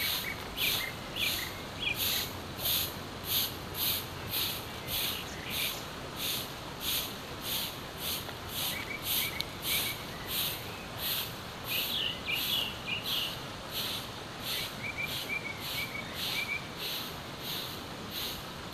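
Fibre broom sweeping dry leaves across a concrete road in steady, even strokes, about one and a half swishes a second. Birds chirp briefly now and then.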